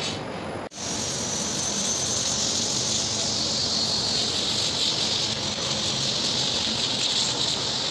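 Power sander running steadily on the raw wood of a tree-slab tabletop: a steady high hiss with a faint whine, cutting in about a second in.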